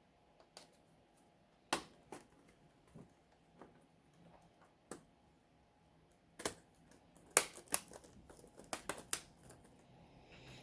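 Sharp plastic clicks and taps of a laptop's case parts being handled and pressed into place during reassembly, a few scattered ones at first, then a quicker cluster of louder clicks about seven to nine seconds in.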